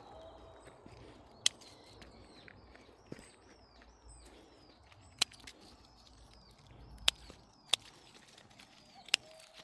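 A bird singing outdoors: a quick run of repeated high notes that slide downward, about three a second, then fainter calls. Five sharp clicks break in through it and are louder than the song.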